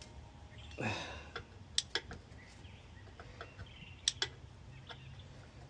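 Scattered sharp clicks and light knocks of washer parts being handled and fitted during the motor and pump reassembly, two pairs of louder clicks about two seconds in and about four seconds in.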